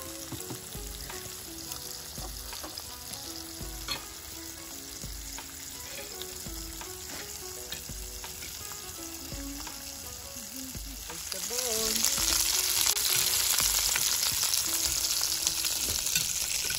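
Pork belly slices sizzling in an electric grill pan. For the first two-thirds the sizzle is moderate under faint background music with a steady beat. From about two-thirds through it becomes a much louder, close sizzle.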